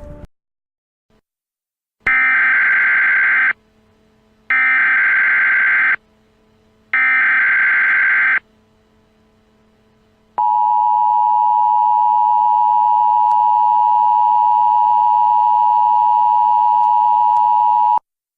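Emergency Alert System header: three digital data bursts (the SAME header code), each about a second and a half long with short gaps between, followed by the EAS two-tone attention signal (853 and 960 Hz) held steady for about eight seconds, then cutting off abruptly.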